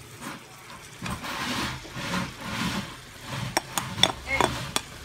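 Shredded cabbage being scraped off a bowl into a frying pan with a slotted spatula: rustling swishes, then a run of sharp taps of the spatula against the bowl and pan near the end.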